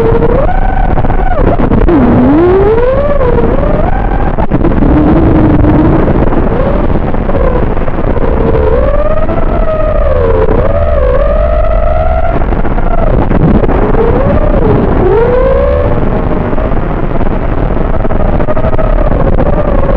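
FPV racing quadcopter's motors and propellers whining, the pitch swooping up and down again and again as the throttle is punched and cut, over a steady rush of wind noise.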